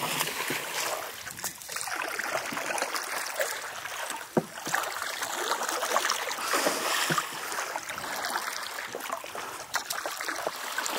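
Water splashing and sloshing from hooked peacock bass thrashing at the surface near a wooden dugout canoe, with scattered sharp knocks throughout.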